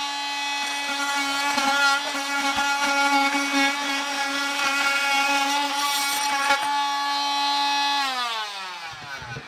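Corded oscillating multi-tool running at a steady high whine as it cuts along the seam of an access door that is glued or nailed shut. About eight seconds in it is switched off and winds down with falling pitch.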